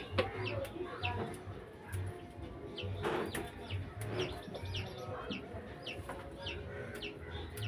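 Birds or poultry chirping and clucking, many short quick calls a few times a second, over music with a steady low beat.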